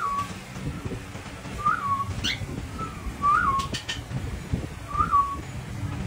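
A short whistle that rises and falls, repeated four times about every second and a half, with one quick upward chirp about two seconds in.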